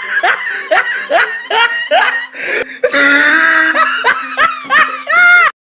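Laughter: a string of short rising-and-falling whoops, about two a second, ending on one longer hoot.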